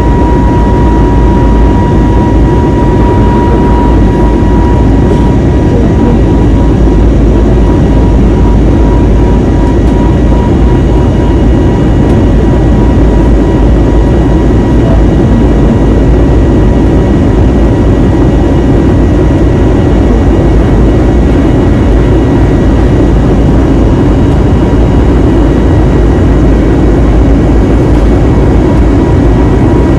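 Steady, loud cabin noise of an Airbus A320neo under power: jet engine and airflow noise, with a faint high whine held at an even pitch.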